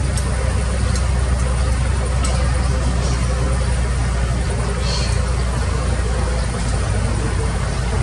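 Excavator's diesel engine running at a steady speed, a deep even hum, with a few faint light clicks over it.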